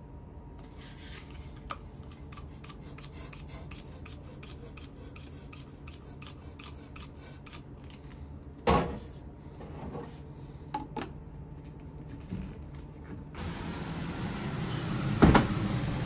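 Hands-on work sounds: frequent small clicks and rubbing, and two sharp knocks, one about nine seconds in and one near the end, over a steady low machine hum that gets louder about thirteen seconds in.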